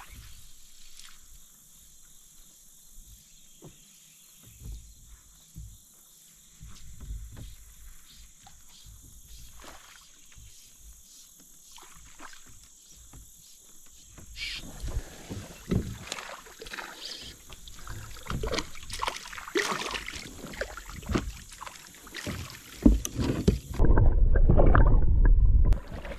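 Kayak paddling: paddle strokes splashing in the river and knocking against the hull, sparse and quiet at first, then busier and louder from about halfway. A loud low rumble for about two seconds near the end.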